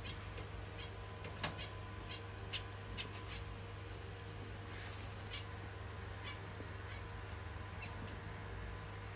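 Zebra finches in a cage making scattered soft, short high chirps and ticks, with a few sharper taps, over a steady low hum.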